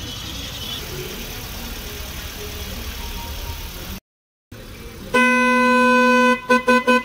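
Outdoor background noise, then after a brief cut a loud, steady horn note held for about a second, followed by a quick series of short toots.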